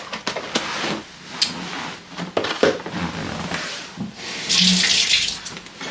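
Foam takeout clamshell being shut and handled, with scattered knocks and clicks of it being moved and set down. A hiss of about a second comes near the end.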